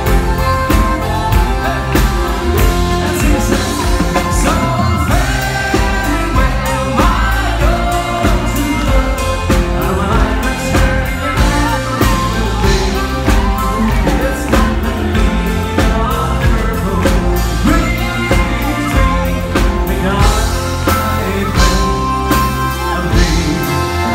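Live band music: an accordion playing over a steady beat, with a man singing.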